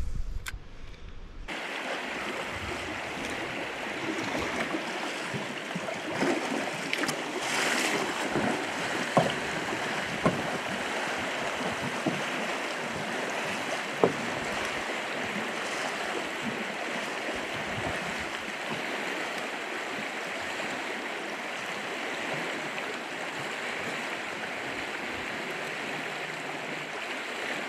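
Rushing water of a river rapid, a steady hiss of fast current over rocks, with a few sharp knocks partway through.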